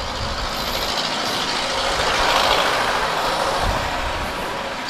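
Wind rush and road noise on a moving Honda Wave motorcycle, with a passing vehicle that swells up to its loudest about halfway through and then fades away.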